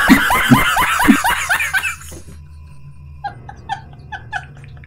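A comic laugh-like sound effect: a fast, loud run of cackling strokes that fades after about two seconds. It is followed by short, high, evenly spaced calls about four a second.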